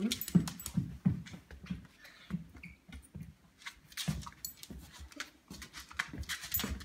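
Scottish terrier making short, low whining grumbles in a broken string, asking for its dinner, with scattered sharp clicks and taps among them.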